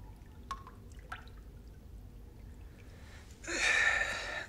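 Water in a foam-filled bathtub: a few small drips, about half a second and a second in, over a quiet background. About three and a half seconds in comes a louder breathy rush lasting about a second.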